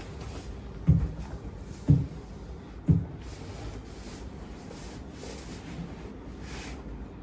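Three dull thumps, evenly spaced about a second apart, during a chiropractic treatment session, over a faint steady room hiss.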